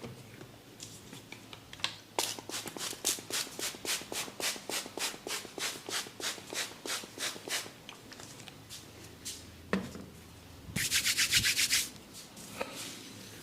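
Rubbing strokes over skin and hair during a head massage, an even rhythm of about four strokes a second. Near the end comes a louder, faster flurry of rubbing that lasts about a second.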